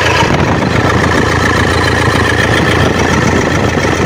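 Toyota Hilux diesel engine idling steadily, heard close up in the engine bay, with a faint steady high whine running through it.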